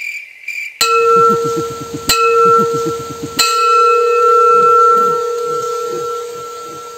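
A metal pot lid struck three times with a spoon like a gong, about a second and a quarter apart, each strike ringing on like a bell and slowly fading.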